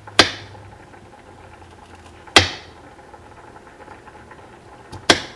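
Kitchen knife chopping through a carrot onto a cutting board, slicing it into discs: three sharp knocks about two seconds apart.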